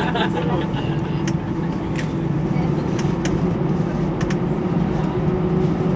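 Airbus A320 engine and airframe noise heard from inside the cabin: a steady low hum with a higher drone line above it, a faint tone rising slightly near the end.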